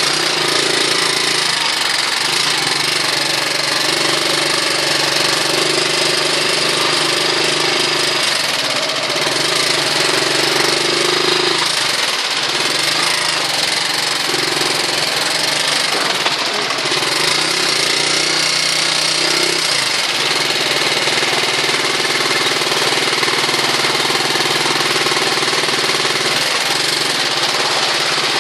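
Motorcycle engine of a tricycle running steadily, its pitch shifting every few seconds as it moves through floodwater. A dense hiss of heavy rain and water runs under it.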